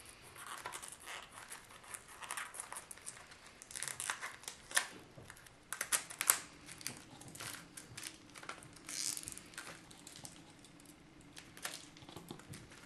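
Plastic shrink wrap being slit with a pocket knife and peeled off a tarot card box: irregular crinkling and tearing, with a few sharp clicks about halfway through.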